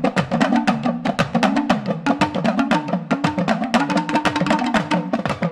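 News-programme intro theme music: rapid, driving percussion hits, several a second, over a low repeating melodic line.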